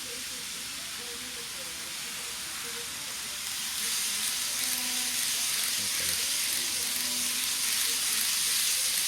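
Model railway camera car running along the track: a steady high hiss of wheels and drive that grows louder about four seconds in.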